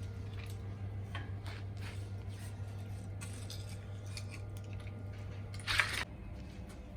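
Food-preparation handling noises: scattered light clicks and rustles, with one louder rustle or scrape about six seconds in, over a steady low hum.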